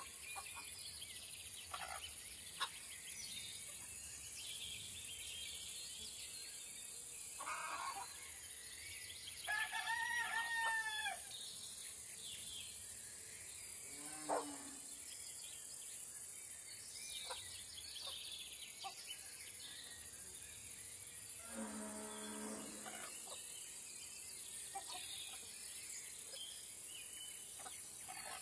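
Farmyard ambience over a steady high insect hiss. A rooster crows once, about ten seconds in, in one arched call of about a second and a half. A lower, drawn-out animal call comes about three quarters of the way through, with a few faint clicks and knocks between.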